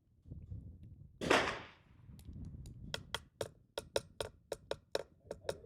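A single .22 rimfire rifle shot about a second in, fading quickly, then a quick, uneven run of sharp clicks.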